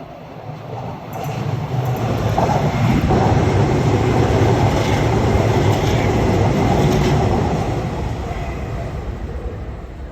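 Keio Inokashira Line electric commuter train passing close by. It grows louder from about a second in, is loudest through the middle and fades toward the end.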